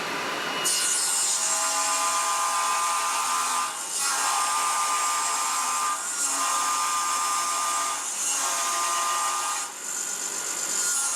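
Power tool cutting away the waste to form a rabbet along a wooden strip. It runs steadily with a faint whine and breaks briefly between several passes.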